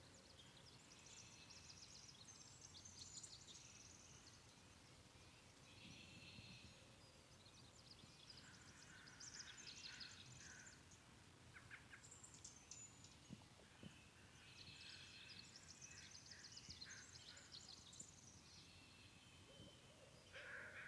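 Faint birdsong: several birds chirping and trilling in short phrases. A louder animal call starts near the end.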